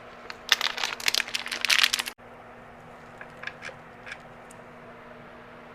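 Crinkling and rustling of packaging as CPU cooler mounting parts are handled, cutting off suddenly about two seconds in. A few faint clicks of small parts follow over a low steady hum.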